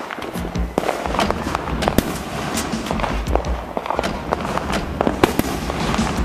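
Aerial fireworks going off: a rapid, irregular run of sharp bangs and crackling pops, several a second, over a low rumble.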